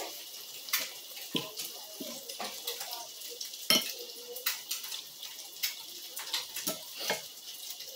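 Eating and drinking at a table: sips of coffee from a small glass and chewing, with scattered sharp clicks and clinks of the glass and spoon against the bowl and table, the loudest a little under four seconds in.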